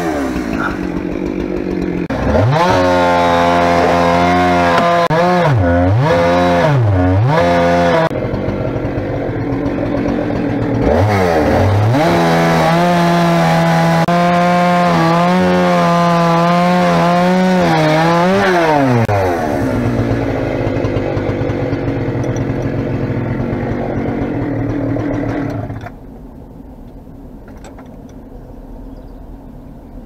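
An engine revving, blipped down and up several times, then held at a steady high speed for several seconds before the revs fall away. Near the end it drops to a much quieter low hum.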